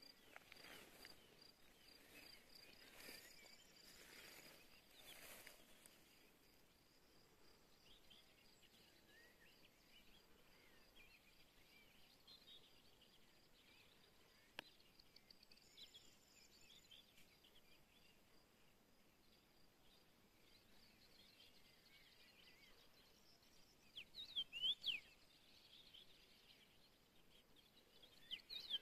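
Faint meadow ambience: a steady, high, pulsing insect trill with scattered soft bird chirps, then a short burst of louder, quick, sweeping bird calls about 24 seconds in and again at the very end.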